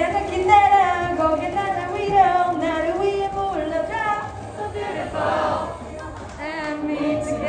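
Several voices singing a melody together, holding sustained notes that step from pitch to pitch.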